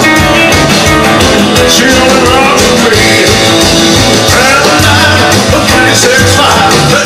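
Rock and roll record playing loudly, a band with singing.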